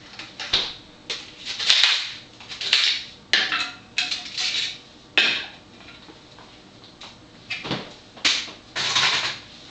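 Ice cubes clinking and clattering as they are dropped one after another into a tumbler of water, about a dozen sharp knocks with short pauses between them.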